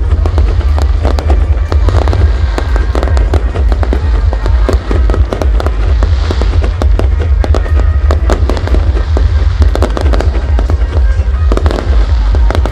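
Aerial fireworks display: a dense, continuous run of bangs and crackles from shells launching and bursting, over a steady deep rumble.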